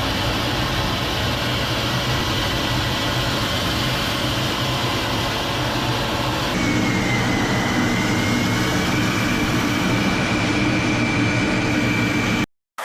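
Jet aircraft engine running: a steady, loud rush of noise with a thin high turbine whine. The sound changes abruptly about six and a half seconds in, the whine wavering then holding steady, and it cuts out briefly near the end.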